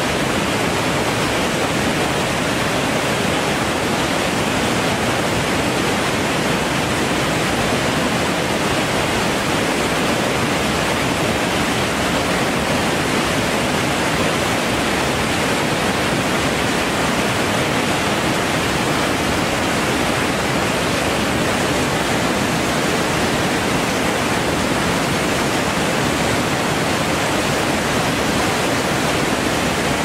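Swollen river rushing through rapids: a loud, steady rush of churning whitewater with no breaks or changes.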